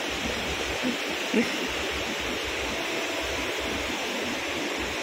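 Steady rush of water from a rocky river and waterfall, with two brief faint sounds a second or so in.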